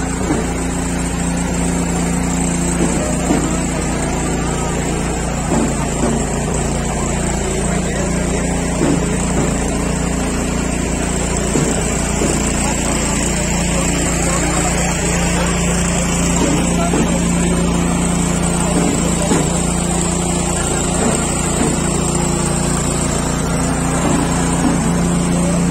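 Engine running steadily at a constant speed, a low, even drone, with people's voices faintly mixed in.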